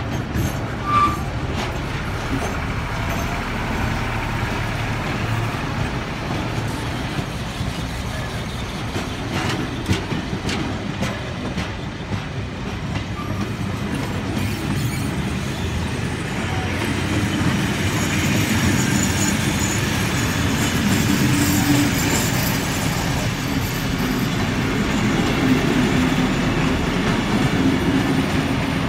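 Heritage passenger train's carriages rolling past on steel wheels: a steady rumble and clatter over the rails, growing louder about two-thirds of the way through, with a faint wheel squeal.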